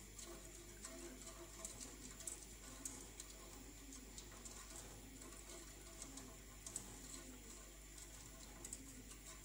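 Plastic whisk stirring a milk mixture in a stainless steel saucepan, its tines lightly ticking and scraping against the pan in a faint, irregular patter. The mixture is stirred without stopping as it heats so the cornflour does not settle.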